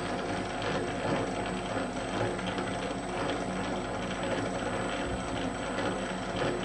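Famag Grilletta electric spiral dough mixer running steadily, its motor and gears humming as the spiral hook turns through flour and water to mix pizza dough.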